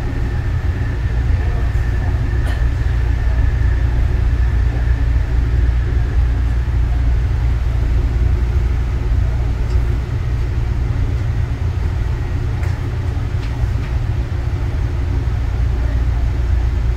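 Interior running noise of a Yongin EverLine driverless light-rail car (Bombardier ART 200) under way between stations: a steady low rumble with a faint high whine that fades out over the first few seconds.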